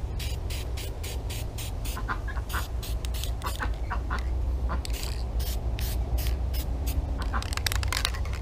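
Aerosol spray-paint can spraying black paint onto a small diecast car in many short, quick bursts of hiss, over a steady low rumble.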